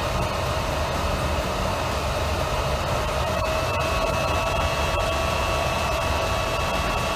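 Thermoelectric chiller running under its repaired controller: a steady whirring hum with a few steady whining tones. A higher whine joins about three and a half seconds in, as the chiller switches from idle to active control.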